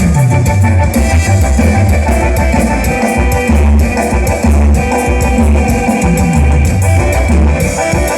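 Loud dance music with drum kit, guitar and a heavy pulsing bass line, played through a DJ sound system.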